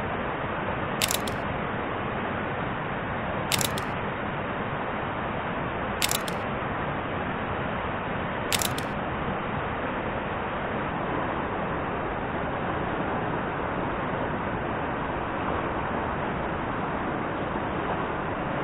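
Camera shutter clicks, four of them about two and a half seconds apart in the first nine seconds, over a steady rushing of river water.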